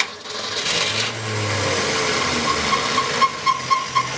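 1965 Ford Falcon inline-six engine starting up, its revs falling as it settles toward idle. From about three seconds in, a regular tick comes through about five times a second: valve clicking, which the owners put down to valve lash set too loose.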